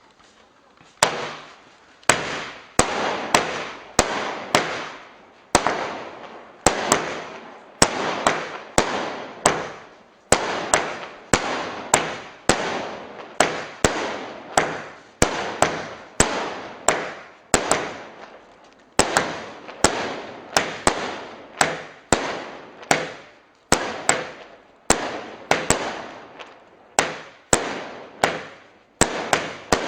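A consumer firework barrage cake firing shot after shot, about one and a half sharp bangs a second, each followed by a short fading tail.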